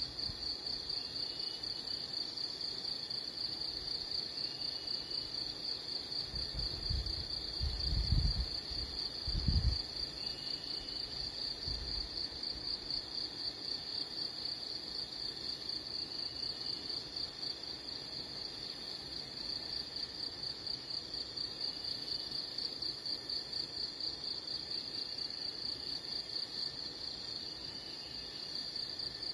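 A steady, high, fast-pulsing insect trill with no break. Faint short rising chirps recur every few seconds, and a few low thumps come about seven to ten seconds in.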